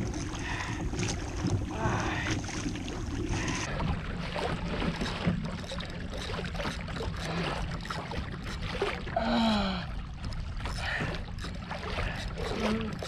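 Water lapping against a fishing kayak's hull and wind on the microphone, with scattered short clicks and knocks. About nine seconds in comes a short strained groan from the angler as he fights the fish.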